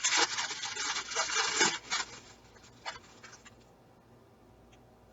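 Crinkling and rustling of an instant-ramen wrapper and the dry noodle block being handled into a bowl for about two seconds, then a few light taps.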